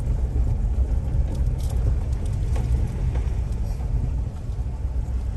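4x4 vehicle driving on a rough dirt track, heard from inside the cabin: a steady low rumble of engine and tyres.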